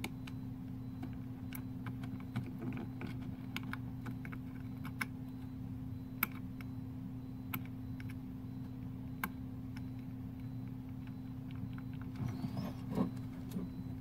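Scattered light clicks and ticks from a keyboard circuit board being handled, at irregular times. Near the end there is a brief scraping as the board is moved. A steady low hum runs underneath.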